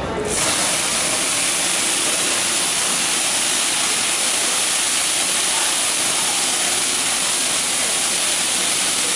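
Liquid squirted onto a hot teppanyaki grill plate sizzling and flaring into a tall flame, making a loud, steady hiss as the plate is flame-sterilised. The hiss starts a split second in.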